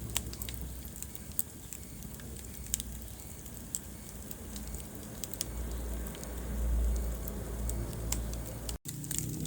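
Wood fire burning in a fireplace: irregular sharp crackles and pops over a low steady rumble of the flames. The sound cuts out for an instant near the end.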